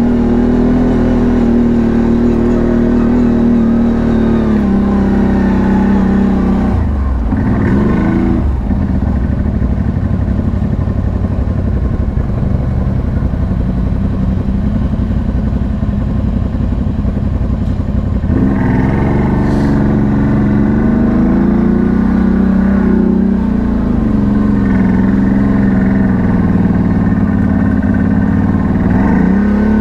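CFMoto 1000 ATV's V-twin engine running steadily on a trail ride. The engine note drops and swings with the throttle about seven seconds in, runs lower and rougher for several seconds, then picks up again.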